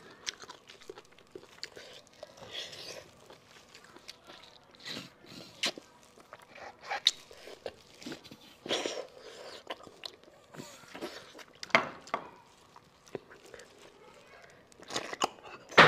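Close-miked eating sounds of sucking and chewing the marrow out of sheep bones: irregular wet slurps, mouth smacks and clicks, with one sharp, loud burst near the end.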